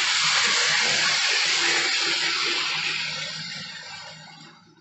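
OO-gauge model locomotive and its train running past close by: a rushing rattle of wheels on track over a low motor hum. It swells as the engine passes and fades away near the end.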